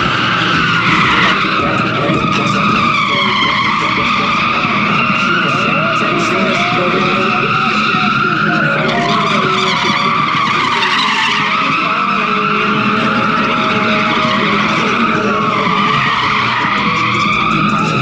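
Drift car's tyres squealing continuously as it slides, the squeal wavering up and down in pitch and dipping several times, with the engine running hard underneath.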